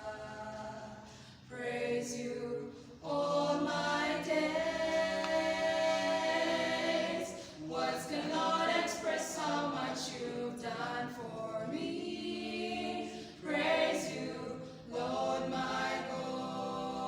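Choir singing a praise song a cappella, with long held notes and short breaks between phrases.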